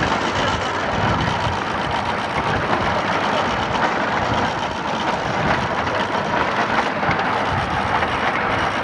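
Ride-on miniature train running steadily along its track, heard from the passenger cars as a constant, even running noise with no sudden knocks or changes.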